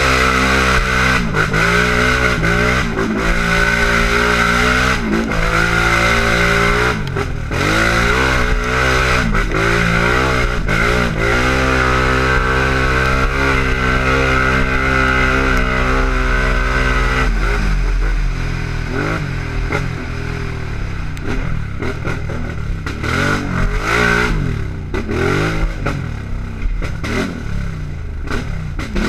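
Can-Am race quad's engine at racing pace, revving hard and repeatedly rising and falling in pitch through throttle changes and gear shifts, with clatter from the machine over rough ground. About seventeen seconds in the engine drops to a lower, rougher, more uneven run.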